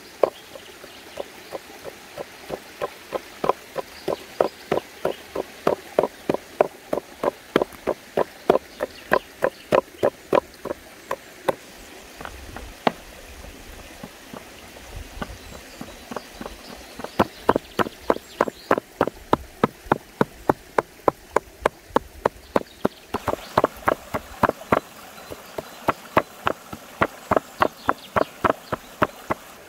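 Meat cleaver chopping raw beef into mince on a wooden log-slice board, sharp even chops about three a second. The chopping thins out for a few seconds midway, then resumes at the same pace.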